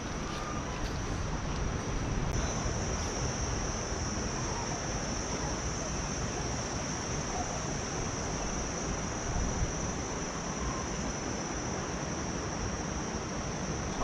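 Insects droning on one steady high pitch, getting a little stronger about two seconds in, over a constant low rushing noise.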